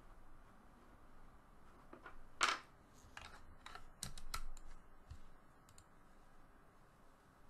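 Faint clicks and scrapes of a metal pick and fingertips prying at a Nexus 5 phone's plastic midframe. The loudest scrape comes about two and a half seconds in, followed by a run of small clicks.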